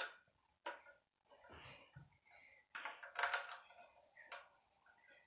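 Plastic Lego bricks being handled on a model helicopter: faint clicks and rattles as pieces are pulled off and pressed on, with a cluster of them about three seconds in.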